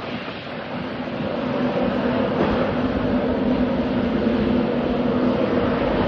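LNER InterCity 225 electric train running with a steady hum of two held tones over rumbling noise, growing louder about two seconds in as it comes closer.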